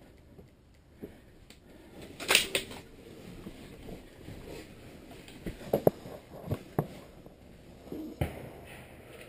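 Clicks and clunks of a rifle being handled between shots: a sharp double clack about two seconds in, then a few lighter clicks.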